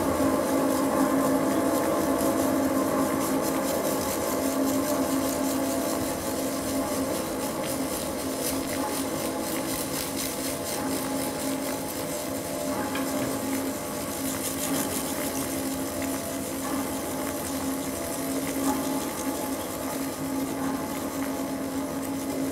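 Steady drone of several held reed tones sounding together as one chord, easing a little in loudness over the first few seconds and then holding, with a faint high rustle above it.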